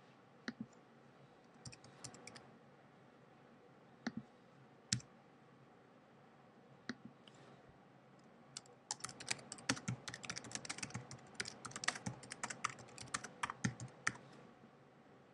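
A few single clicks spaced out over the first half, then about six seconds of fast typing on a computer keyboard as a line of text is entered.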